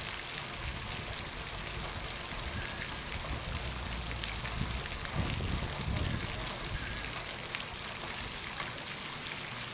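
Water jetted up by the Eco Pond Rescue Hippo fountain falling back onto the pond surface, a steady splashing hiss.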